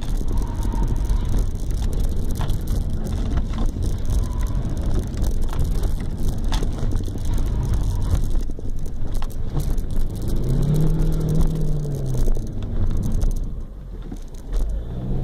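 Car engine and tyre noise heard from inside the cabin while the car is driven along a coned track. About ten seconds in the engine note rises and falls, and the sound drops off near the end as the car slows.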